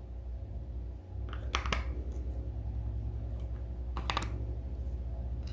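A few small plastic clicks in two short clusters, from a TV remote being handled and its buttons pressed, over a steady low hum.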